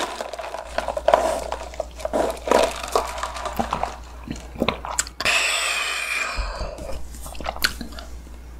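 Close-miked mouth sounds of sipping iced coffee through a straw and swallowing: a string of wet clicks and lip smacks, with a hissing stretch of about a second and a half just past the middle.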